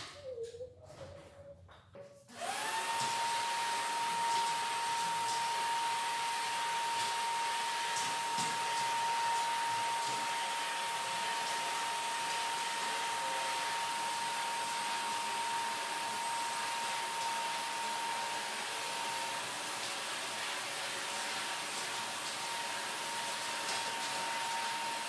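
Shop vacuum switched on about two seconds in, then running steadily with a high whine over a hiss as its hose sucks dust off a worktable top.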